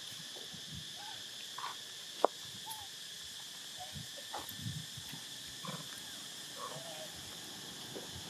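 Baby long-tailed macaque giving short squeaks and coos, several scattered through, over a steady high drone. There is one sharp click a little over two seconds in.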